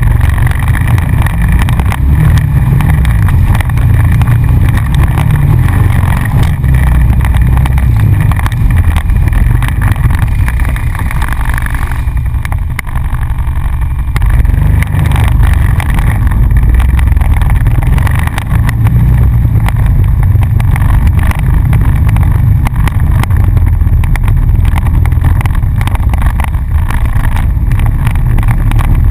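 ATV engine running under throttle as the quad rides a rough dirt trail, a steady low rumble with jolts and rattles from the ground. The level eases briefly about twelve seconds in.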